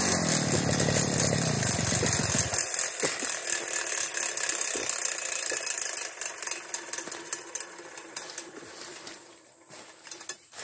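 Backpack brush cutter engine winding down after being shut off, its pitch falling for about two and a half seconds until it stops. Then dry grass and brush crackle and rustle underfoot, fading near the end.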